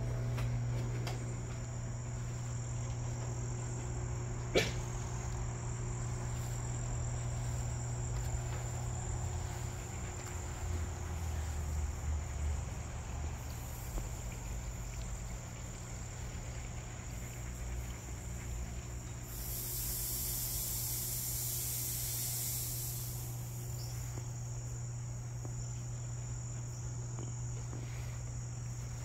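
Steady evening chorus of crickets trilling high and continuously, over a steady low hum. A sharp click sounds once about four and a half seconds in, and a louder hissing buzz rises and holds for about four seconds past the middle.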